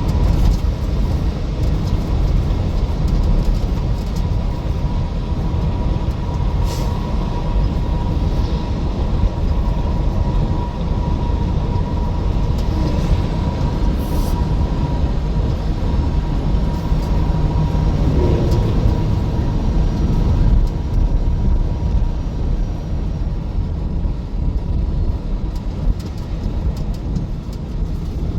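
Steady road and engine noise of a vehicle driving on the highway, heard from inside the cab. A faint steady whine runs under it and fades out about twenty seconds in.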